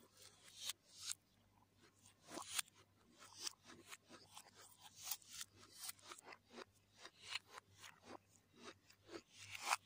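Close-miked eating sounds played in reverse: a hand mixing and grabbing fried rice and noodles, with crunchy chewing. They come as a rapid, irregular run of short crisp crackles and smacks.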